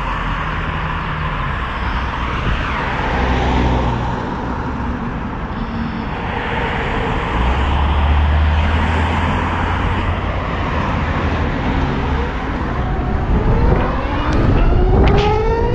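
Wind rush and road noise riding a Harley-Davidson LiveWire electric motorcycle, with no engine note, only the electric motor's whine. Near the end the whine rises in pitch several times as the bike speeds up.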